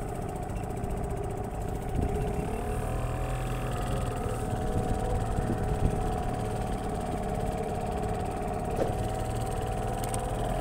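A boat engine running steadily: a low drone with a couple of held tones that drift slightly in pitch.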